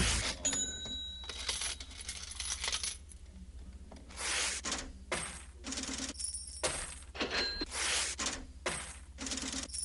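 Sudden metallic clinking and crashing hits over a steady low hum. One hit near the start rings on for about a second; from about four seconds in the hits repeat about twice a second.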